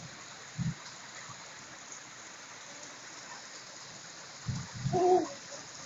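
Steady hiss of falling rain. A short low thump comes about half a second in, and a brief pitched call or voice about five seconds in.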